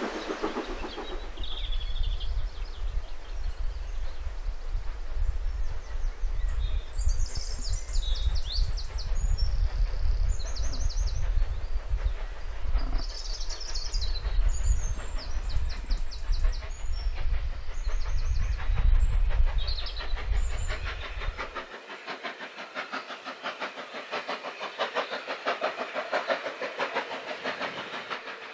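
Birds chirping over a low steady rumble. About three-quarters of the way through, the rumble cuts off and a steam locomotive's exhaust takes over, a quick run of chuffs as it works along the line.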